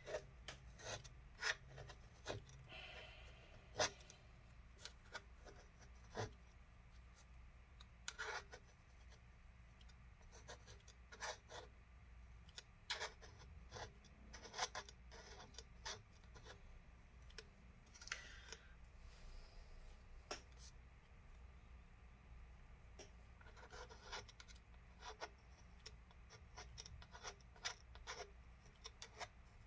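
Faint, irregular scraping and scratching with small sharp clicks: a hand tool scraping old battery adhesive out of a 13-inch MacBook Pro's case.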